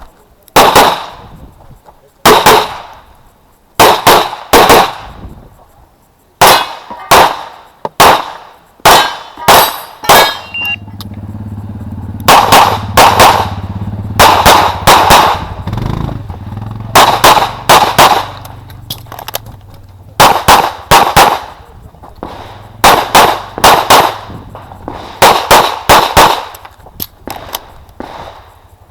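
9mm CZ Shadow 2 pistol fired in rapid pairs and short strings of shots, each crack ringing out briefly. A low steady hum runs under the shots from about a third of the way in to about three quarters.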